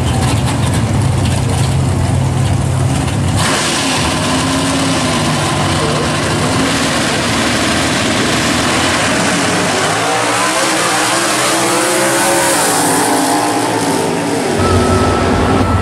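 Two V8 drag cars, a 1969 Camaro and a Chevy Nova, rumbling on the start line. About three seconds in they launch at full throttle and run down the quarter mile. Their engine note climbs and drops through the gear shifts as they pull away.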